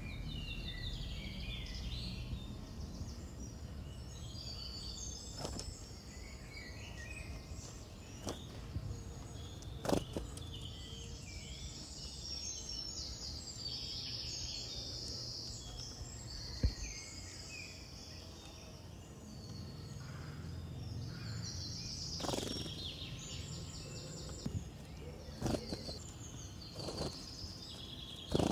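Small birds chirping and calling repeatedly over a steady low rumble, with a few sharp clicks scattered through.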